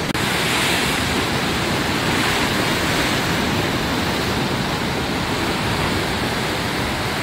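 Steady wash of ocean waves and surf, mixed with wind, an even noise with no distinct events.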